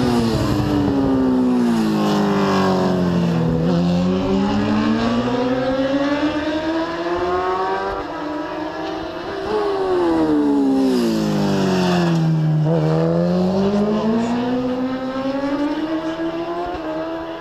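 Superbike racing motorcycles passing at full race pace, one at a time. The engine note falls to its lowest about three and a half seconds in, then climbs steadily as the bike pulls away. A second bike follows about ten seconds in, its note again dropping and then climbing.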